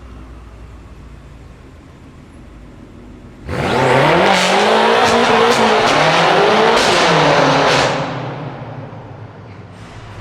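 BMW M5 engine and exhaust idling low, then about three and a half seconds in going to hard acceleration with a sudden loud jump, its pitch climbing and dropping several times through gear changes, before fading away over the last couple of seconds.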